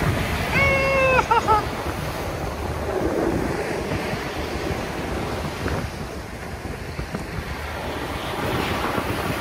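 Sea waves washing in on the beach, with wind buffeting the microphone. A short high-pitched call sounds once, about half a second in.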